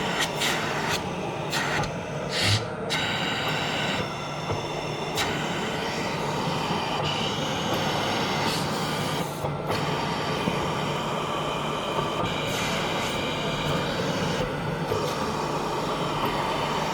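Omnia Health Comfort Cough mechanical in-exsufflator running, its blower whirring steadily over a constant hum. The sound shifts abruptly several times in the first few seconds, then runs evenly with brief dips about ten and fifteen seconds in.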